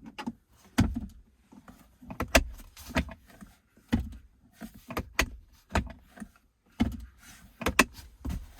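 Irregular series of sharp plastic clicks and knocks as interior console trim and charger parts in a pickup are handled, pressed and seated into place.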